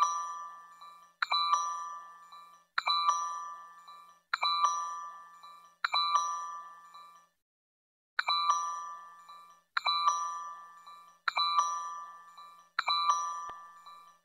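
Emergency alert chime: a bell-like tone struck about every one and a half seconds, nine times, each note ringing out and fading. The strikes pause for about a second near the middle, then resume at the same pace.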